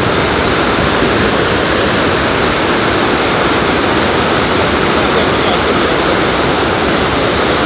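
Loud, steady rush of the Rhine Falls, a large waterfall, a constant roar of falling water.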